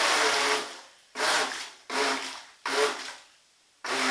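Small electric RC boat motor and propeller revving in short throttle blips, each starting sharply and winding down. After four blips it is held on steadily near the end.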